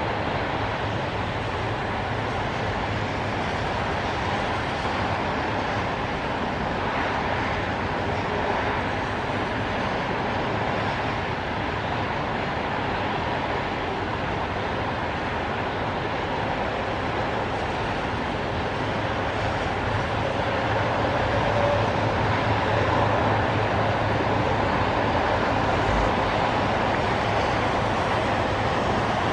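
Steady highway traffic on rain-wet pavement: a continuous wash of tyre hiss and passing cars, swelling slightly about two-thirds of the way through.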